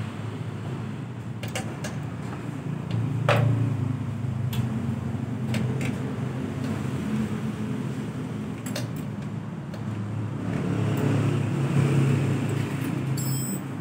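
Vespa two-stroke engine, fitted with a Japanese carburettor and an RXZ reed-valve membrane, idling steadily while its carburettor is adjusted with a screwdriver. A few sharp clicks sound over the engine, and the engine note swells a little about ten seconds in.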